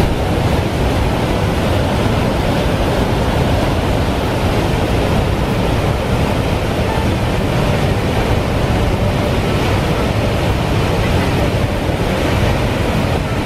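Heavy white water of a large waterfall and the torrent in its rock gorge, a loud, steady rush with no change.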